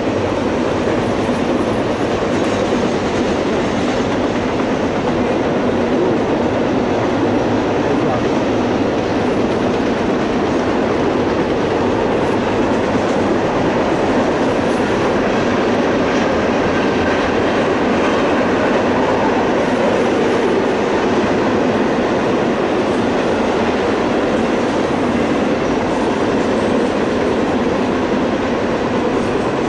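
Double-stack intermodal freight train's well cars rolling past, a steady, even noise of steel wheels running on the rails.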